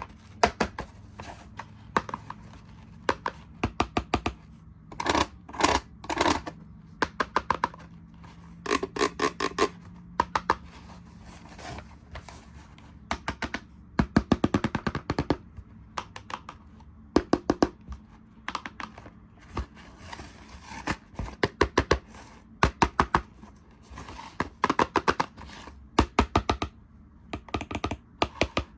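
Hands handling plastic toys and their packaging: quick runs of sharp clicks and taps, with a few thunks and scrapes.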